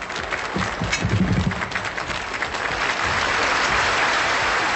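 Studio audience applauding: a mass of clapping that swells and is loudest over the last couple of seconds.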